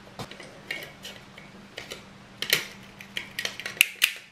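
Light clicks and clatters of a disassembled tape measure's plastic case, tape reel and a pair of pliers being handled, with a few sharper clicks about two and a half and four seconds in.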